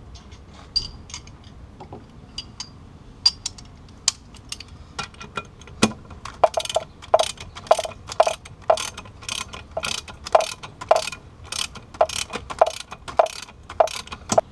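Hand socket ratchet clicking as bolts are snugged down. Sparse clicks at first, then steady, quick ratcheting strokes from about five seconds in.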